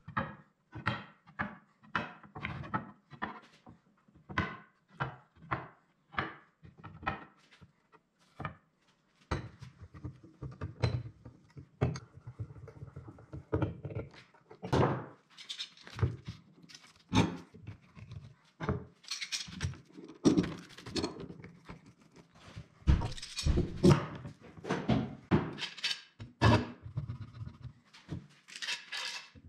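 Sharp knocks on wood, about two a second at first, then irregular knocks, scrapes and metal clatter as glued wooden strips are tapped into line and steel bar clamps are set and tightened across the panel.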